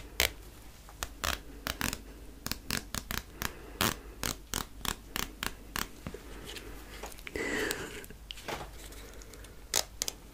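A loose jacket zipper handled close up: the slider is worked along the teeth and the pull tab flicked, giving an irregular run of sharp clicks and short scratchy zips, several a second.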